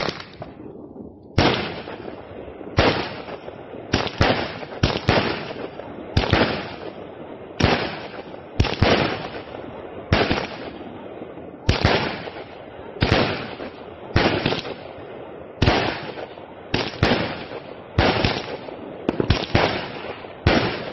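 Jorge FOX M35 firework cake firing shot after shot: about twenty sharp bangs, most a second or so apart with some in quick pairs, each fading away over about half a second.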